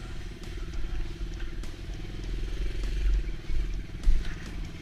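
Kawasaki KLX110's small single-cylinder four-stroke engine idling steadily, with a few light knocks over it, the sharpest about four seconds in.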